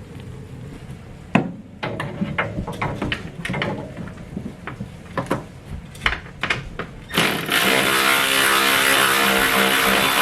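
Scattered clicks and clinks of tools being handled. About seven seconds in, a power tool's motor starts and runs steadily with a whine, loosening the nuts that hold the heater box.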